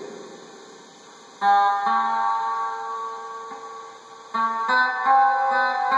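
Acoustic guitar chords strummed and left to ring: one chord about one and a half seconds in, then a quick run of strums from about four and a half seconds in.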